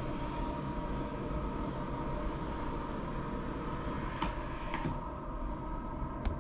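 Steady machine hum carrying a faint high tone, broken by three sharp clicks in the second half.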